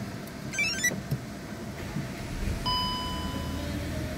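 Skoda Octavia Mk4 instrument-cluster chimes: a quick run of short stepped notes about half a second in, then a steady warning beep lasting about a second near the middle as the oil-service-due warning comes up. The engine runs with a low steady hum underneath.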